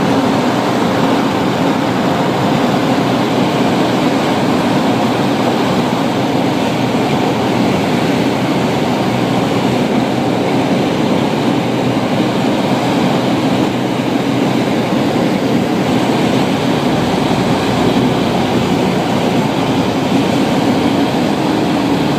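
Vintage air-cooled VW bus driving at road speed: a loud, steady mix of engine, tyre and wind noise that holds even with no change.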